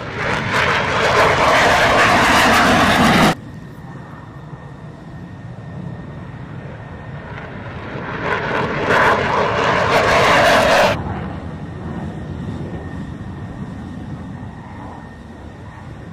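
F-16 Fighting Falcon jet engine noise during takeoff and climb-out. Loud jet noise cuts off abruptly about three seconds in and drops to a quieter rumble. The rumble swells loud again from about eight to eleven seconds, cuts off abruptly, and settles back to a quieter steady rumble.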